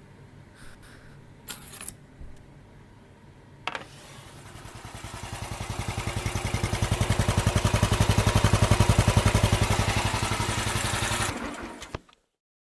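An engine, like a motorcycle's, running with a rapid even beat. It starts about four seconds in, grows louder, holds steady and cuts off abruptly near the end. A few faint clicks come before it.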